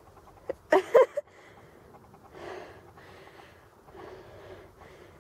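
A brief burst of a girl's voice about a second in, then faint, breathy noise.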